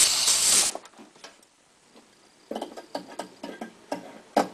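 A short burst of compressed-air hiss, about a second long, as the air line is disconnected from the ink pump's air motor, cutting off suddenly. Then a run of light metal clicks and knocks from handling the fitting.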